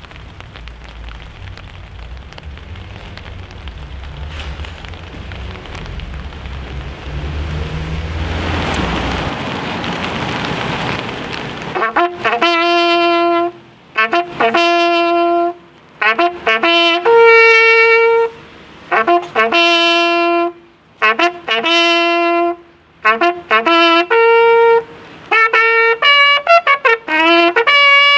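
Rain pattering on umbrellas. About twelve seconds in, a bugle starts a military call: separate held notes, loud and clear, jumping between a few pitches.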